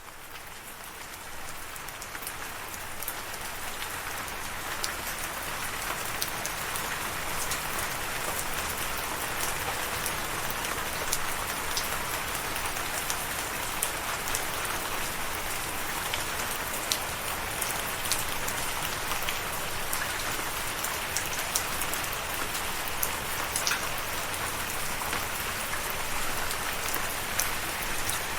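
Steady rain falling, with scattered sharp drop ticks on a hard surface. It swells up from quiet over the first few seconds and then holds steady.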